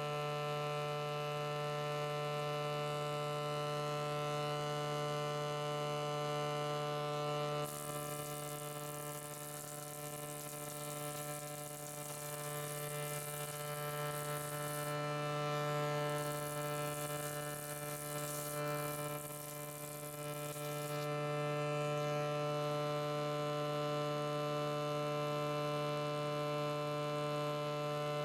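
Old Porter 16-inch jointer with a straight-knife cutterhead running with a steady, many-toned hum. From about 8 to 21 seconds in, a high hissing cutting noise comes and goes as boards are fed across the knives and edge-jointed.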